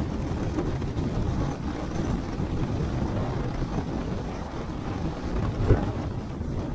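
Strong wind buffeting the microphone, a steady low rumble, with one short knock near the end.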